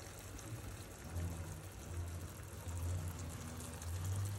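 Thick chickpea-flour and tofu batter pouring from a plastic bowl into a pan of cooked tomatoes and peppers, a soft, low-level sound. A single sharp knock comes right at the end.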